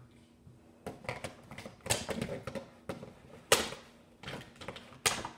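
Scissors cutting into stiff plastic-and-cardboard toy packaging: a run of crackling and clicking, starting about a second in, with several sharp, loud snips.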